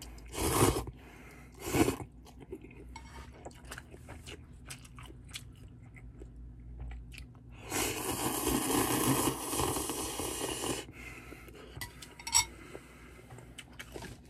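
Instant ramen noodles slurped into the mouth: two short slurps near the start, then one long slurp of about three seconds past the middle, with soft chewing between.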